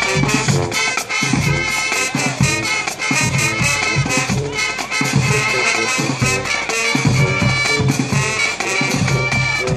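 Band music, loud and dense, with horns over a steady beat.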